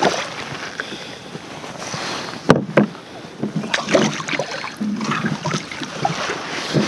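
Water splashing as a thornback ray is lifted out of the sea beside a kayak, then irregular knocks and rustling as the fish is handled in the kayak, with one sharp knock about two and a half seconds in.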